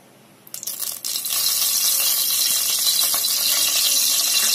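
Hot ghee and freshly poured oil sizzling in a pressure cooker, a steady high hiss that starts about a second in after a few light clinks.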